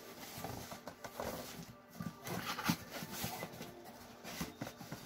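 Brown cardboard box being pulled open and handled: irregular rustling, scraping and small knocks of cardboard.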